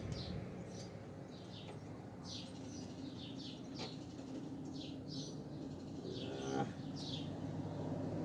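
Small birds chirping, many short high chirps throughout, over a steady low rumble.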